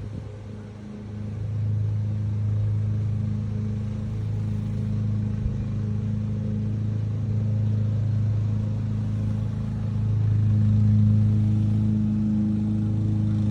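A steady low mechanical hum, like a motor running, holding one pitch and swelling a little near the end.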